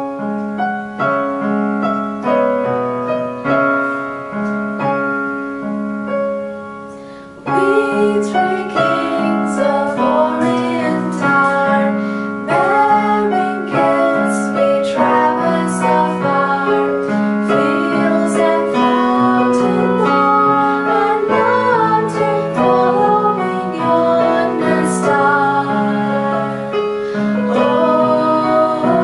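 Yamaha electronic keyboard playing a piano-voiced introduction, joined about seven seconds in by girls singing a song to the keyboard accompaniment.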